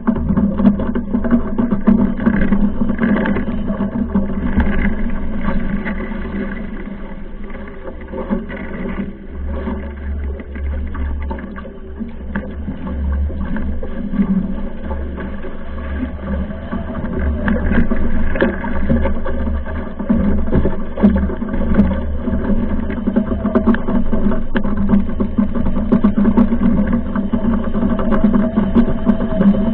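Strong wind buffeting the microphone on a Mach2 foiling Moth dinghy sailing at speed, with a steady low hum running under the gusts.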